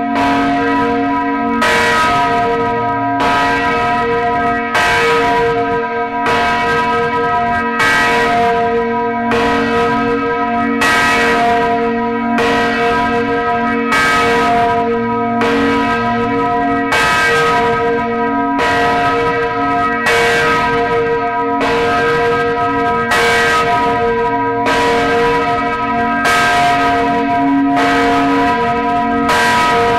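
Large swinging church bells of St. Catherine's, Gdańsk, among them the 2835 kg 'Katarzyna' bell tuned to B, tolling as a funeral farewell. The clappers strike at a steady pace, a little more than once a second, and each stroke's long hum runs into the next.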